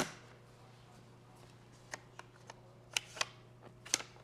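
Clicks and knocks of an HK UMP's bolt and recoil spring being slid back into the receiver during reassembly: one sharp loud click at the start, then a scatter of lighter clicks, with a louder one near the end.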